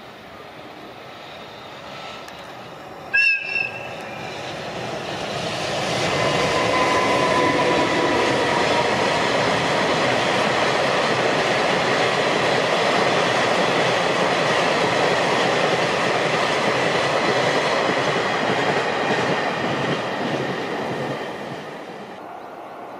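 Freight train hauled by an EH500 electric locomotive passing with a long string of tank cars. About three seconds in there is a short two-part horn blast. The locomotive and wagons then rumble and clatter past for about fifteen seconds, dying away near the end.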